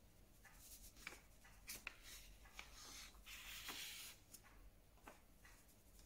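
Faint scratching of a marker drawing on paper in short strokes, with a few small taps; the longest stroke comes about three seconds in.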